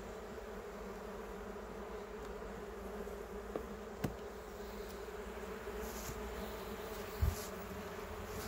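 Honeybee colony in an open hive box humming steadily. A few light clicks of wooden frames and a hive tool being handled break in, with a short dull knock about seven seconds in.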